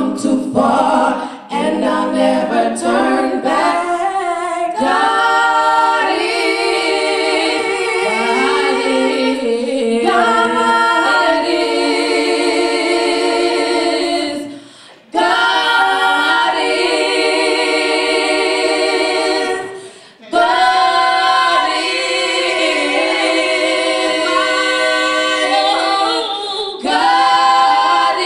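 Female gospel trio singing a cappella in three-part harmony, holding long chords, with brief breaks about fifteen and twenty seconds in.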